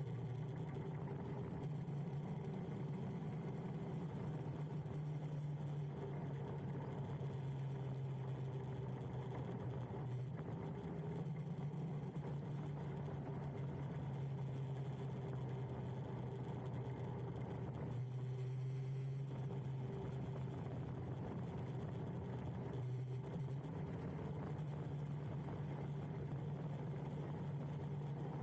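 Electric motorbike cruising at a steady speed: a steady hum from its electric motor, mixed with wind and road noise.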